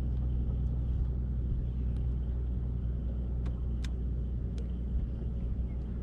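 Boat motor running with a steady low hum. A few light, sharp clicks come in the middle.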